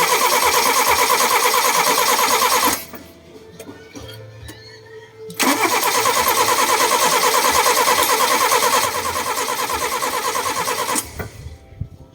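Toyota Corolla 2E four-cylinder engine cranked on its starter in two long attempts with a pause between them. It turns over with a fast, even chugging but does not catch: a hard-starting engine.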